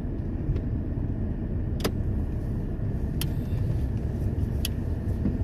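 Steady low rumble of a car driving, heard from inside the cabin. Three light clicks come about a second and a half apart in the middle.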